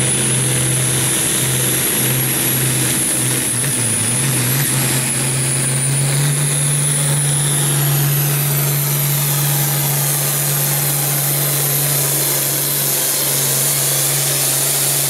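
International Harvester hot farm pulling tractor's diesel engine running hard and steady under full load while pulling a weight-transfer sled, with a high turbo whistle that rises slightly and holds above the engine.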